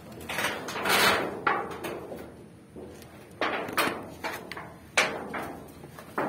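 Irregular scraping and knocking on rough ground: a long scrape about a second in, another around three and a half seconds in, and a sharp knock about five seconds in.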